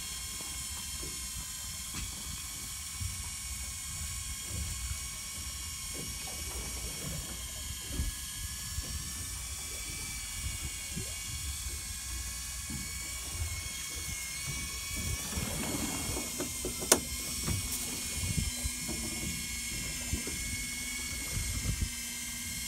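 Electric fishing reel's motor whining steadily as it winds in a hooked fish against a deeply bent rod. A lower steady hum joins about two-thirds through, and there is a single sharp click about three-quarters through.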